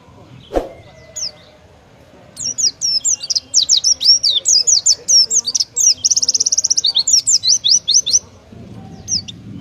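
Oriental white-eye (pleci) singing its rapid 'tembakan' burst song: a fast, unbroken run of high, sharply falling notes lasting about six seconds, with a brief buzzing trill in the middle. A single sharp knock sounds about half a second in.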